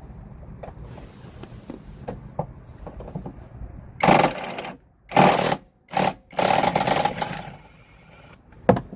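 Impact wrench hammering in four short bursts, about halfway through, while a bolt is undone. A single sharp knock follows near the end.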